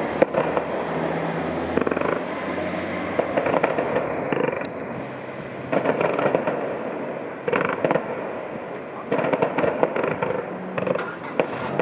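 Distant fireworks display about a kilometre away: repeated clusters of bangs and crackling, a few seconds apart.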